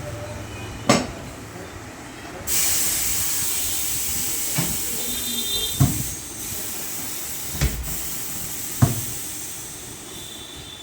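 Pneumatic tyre-changer machine working on a tubeless car tyre: a loud hiss of compressed air starts abruptly about two and a half seconds in and slowly fades, with five sharp knocks along the way.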